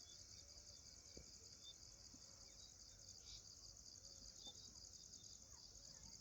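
Faint, steady high-pitched chorus of crickets chirping at dusk, with a few faint chirps lower down.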